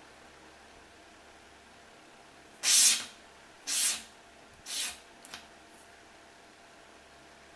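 Pencil drawn along a straightedge across a marble-print sheet: three short scratchy strokes about a second apart, each fainter than the last, followed by a couple of light ticks.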